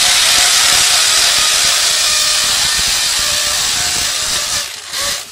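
Electric drill boring a pilot hole into a tiled wall: a loud, steady grinding whir that eases off after about four seconds, gives one short burst and stops.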